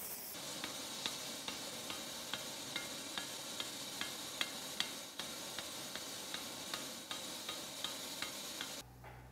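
Light, even metallic taps, about two or three a second, over a steady hiss, while a red-hot rivet in the joint of a pair of blacksmith tongs is set on the anvil. The sound cuts off abruptly near the end.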